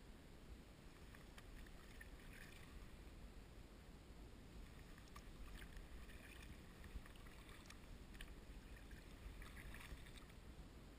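Kayak paddle strokes in calm water: faint soft splashes and drips of the blade entering and leaving the water every three to four seconds, over a low steady rumble.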